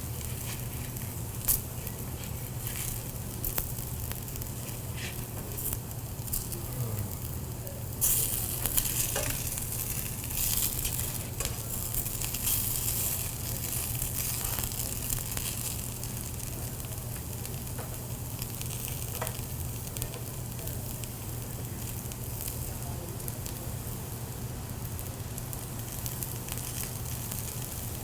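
Potato pancakes sizzling as they fry in butter and canola oil in a pan: a steady hiss with scattered small pops and crackles, and a few louder spatters about a third of the way in. A steady low hum runs underneath.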